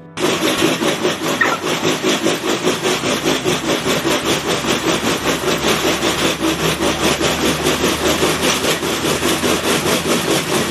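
Dog treadmill (slatmill) running under a trotting dog: a loud, steady rattling rumble of the slatted belt with a quick, regular beat.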